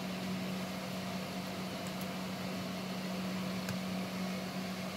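Steady low background hum with an even hiss over it, unchanging throughout; a faint click a little before the four-second mark.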